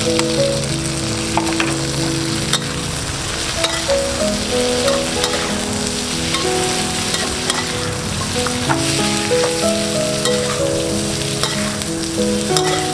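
Chicken sizzling in hot oil in a pan as it is stir-fried, with a spatula clicking and scraping against the pan. Piano background music plays underneath.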